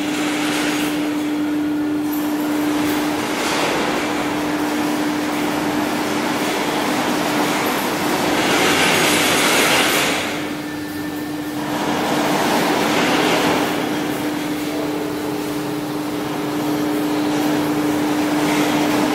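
Steady machine hum on one pitch, with a rushing noise that swells and fades several times, loudest about nine seconds in.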